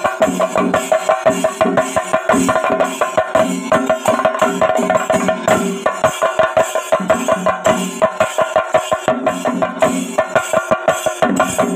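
Dance music with a fast, steady percussion beat, about three to four strikes a second, under a held melody.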